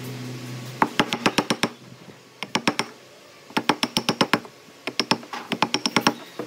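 A wooden mallet strikes a steel chisel in four quick bursts of sharp taps, about eight to ten a second, as the chisel chops a notch out of a wooden beam.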